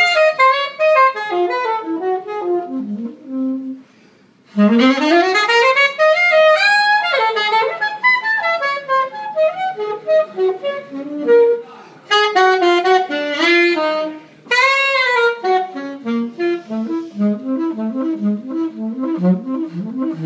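Saxophone playing a jazz solo on its own: fast runs of notes and quick rising sweeps up to high notes, with a short break about four seconds in.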